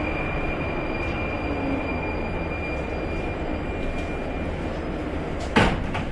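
Metro train running along the track: a steady rumble with a faint high whine that fades away, then a single sharp clank about five and a half seconds in.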